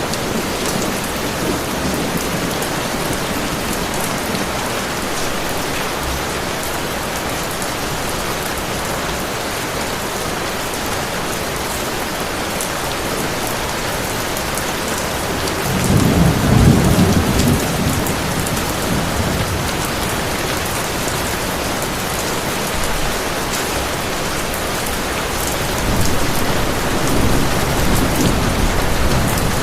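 Heavy rain falling steadily, with a rolling rumble of thunder swelling about sixteen seconds in and a softer rumble starting near the end.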